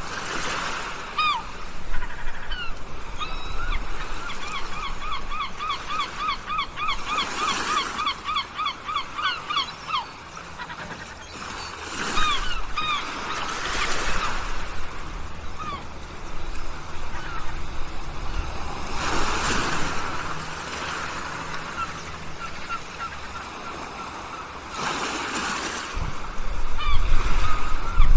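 Birds calling in fast runs of short, repeated honk-like calls, about five a second, with a few loud bursts of rushing noise and a low rumble underneath.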